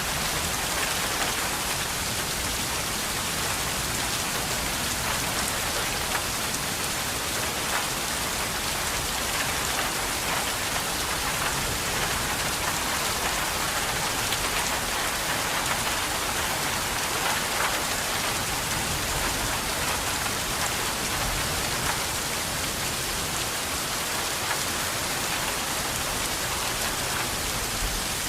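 Steady rain falling, an even hiss of many drops with fine scattered patter throughout.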